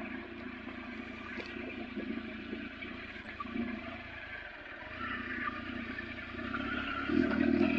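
Triumph Tiger adventure motorcycle's three-cylinder engine running at low speed over a rough, bouncy dirt road, with clattering and rattles from the bumps. It gets louder near the end.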